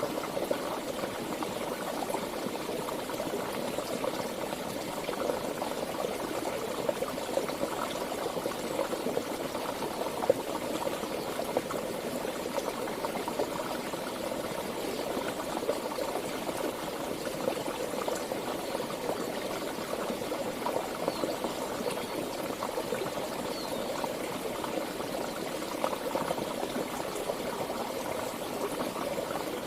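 Water of a stream flowing steadily, a continuous bubbling rush.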